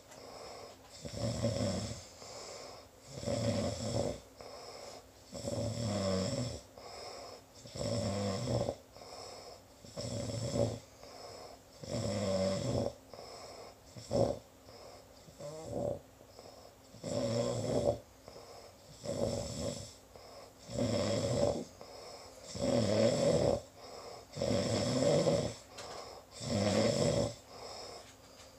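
Steady, rhythmic snoring from a sleeper, one snore roughly every two seconds.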